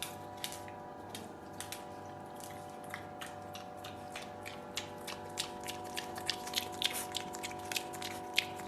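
A pet chewing crunchy food: irregular crunches that come faster toward the end, over a faint steady hum.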